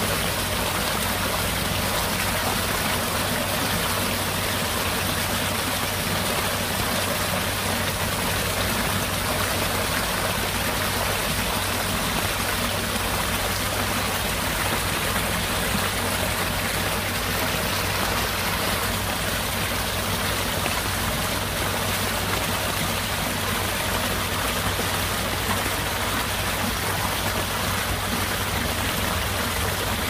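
Heavy rain pouring steadily, an even hiss of countless drops with no letup.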